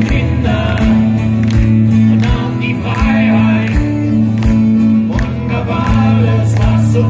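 A live band song heard through a concert PA: acoustic guitars strumming with a sung vocal over steady bass notes and a regular low beat.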